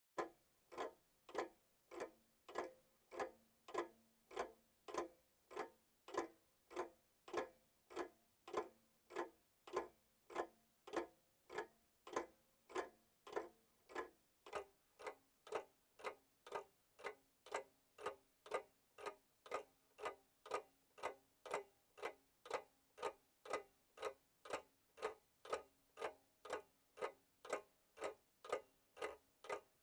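A clock ticking steadily, a little under two even ticks a second, each a short knock.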